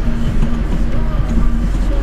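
Steady low drone of a MAZ timber truck's engine heard from inside the cab, with music playing over it.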